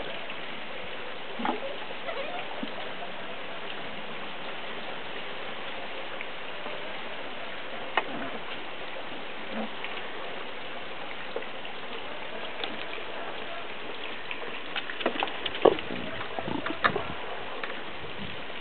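Steady hiss with scattered light knocks and scuffles from Patterdale Terrier puppies playing among plastic pipes and a plastic tub, and a quick run of short sharp sounds near the end.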